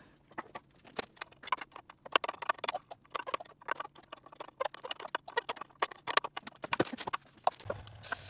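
Chef's knife chopping green beans on a wooden cutting board, sped up: quick, irregular knocks of the blade striking the board. Near the end a steady hiss comes in.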